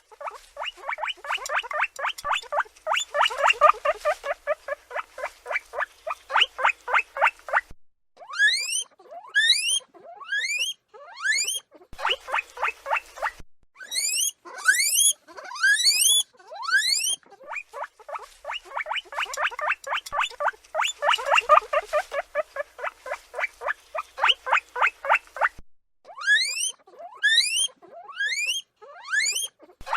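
Guinea pig calling: runs of quick short squeaks, about five a second, alternating with series of loud rising whistles, the wheeking of a guinea pig.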